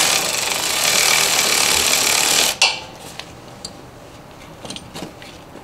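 Cordless electric ratchet running on a brake caliper bolt, then stopping abruptly about two and a half seconds in, followed by a few light clicks. It is turning the bolt the tightening way instead of loosening it.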